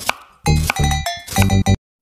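Intro jingle music with low drum hits and bright, ringing bell-like struck notes in a quick rhythm, cutting off suddenly near the end.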